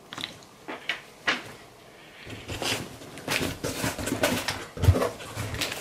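Cardboard shipping box being handled and opened: a few light clicks and taps, then paper and cardboard rustling and scraping, with a dull thump near the end.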